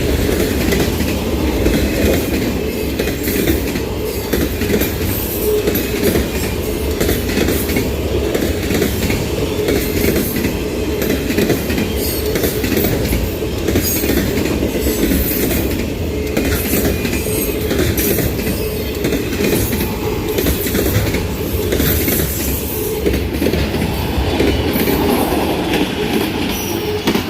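Autorack freight cars rolling past at close range: a steady rumble of steel wheels on rail, with rapid clicking as the wheels pass over rail joints.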